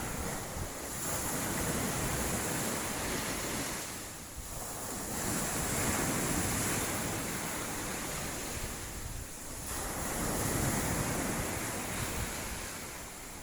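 Sea waves washing onto the beach, swelling and fading about every four to five seconds, three times, with wind buffeting the microphone.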